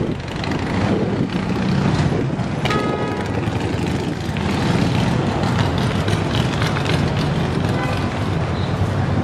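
City street traffic: a steady rumble of passing vehicles, with a brief high-pitched tone about three seconds in.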